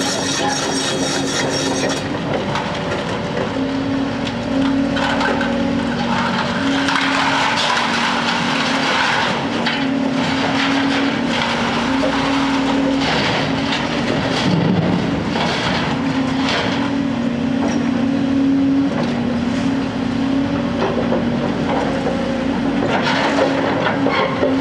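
Diesel engines of two Hyundai hydraulic excavators running steadily. Over them, scrap metal and rebar rattle and clatter as the sorting grab drops and works it in a steel roll-off container: a long run of clatter in the middle and another short burst near the end.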